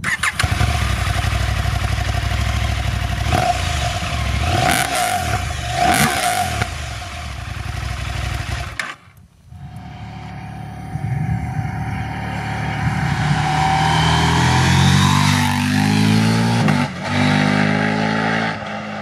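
Husqvarna Norden 901's 889 cc parallel-twin engine running at standstill through its stock silencer, revved up twice. After a cut, the bike approaches under acceleration with its revs climbing in steps, then passes and moves away.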